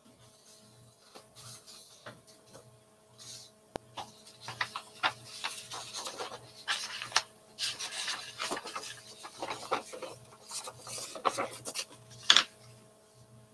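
Sheets of paper being handled and shuffled close to the microphone: a run of rustles, crinkles and sharp clicks that starts a few seconds in and is loudest near the end.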